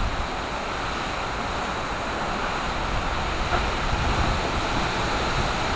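Steady hurricane wind rushing through trees, with gusts buffeting the microphone as a low rumble.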